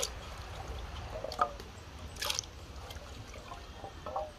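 Cut pumpkin pieces dropped by hand into a pot of water, a few short splashes with dripping in between.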